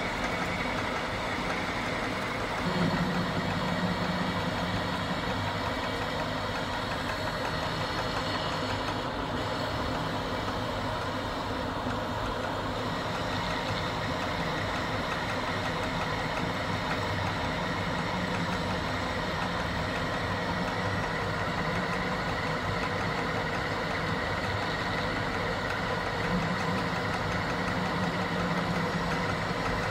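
Metal lathe running steadily while a single-point tool turns a taper on a metal steam-nozzle blank: a continuous machine hum with cutting noise. A low hum grows stronger about three seconds in and again near the end.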